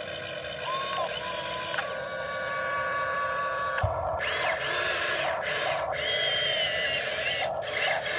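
Huina 1592 RC excavator's small electric gear motors whining as the upper body slews round and the boom and arm move. The pitch shifts and glides as the motors start, stop and change speed. There is a short knock about four seconds in.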